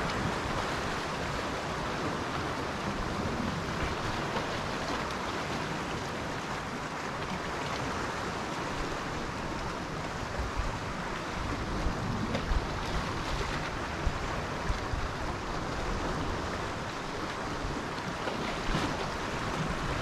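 Sea surf washing steadily against the shore, a continuous hiss of water, with wind gusting and rumbling on the microphone.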